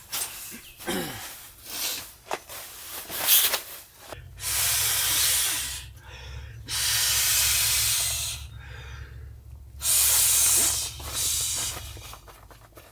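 Breath blown by mouth into the valve of an inflatable camping pillow: three long, steady blows of about two seconds each, after a few seconds of fabric rustling and handling.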